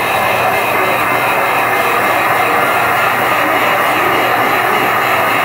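Wagner electric heat gun running, a steady rush of blown air, heating the phone's glass to soften the adhesive under it.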